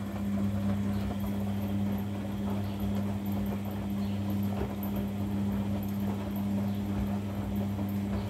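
Front-loading washing machine on a slow wash tumble: the drum turns soapy white laundry through the water with a sloshing, flopping sound over a steady motor hum.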